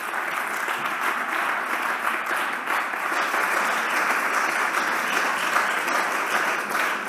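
Applause from a group of seated parliamentary deputies, many hands clapping at once.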